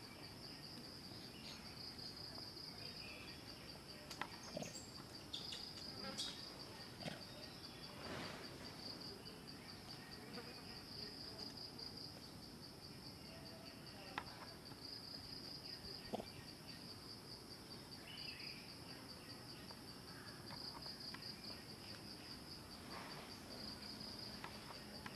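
Steady high-pitched trilling of insects, pulsing slightly, with a few faint clicks scattered through it.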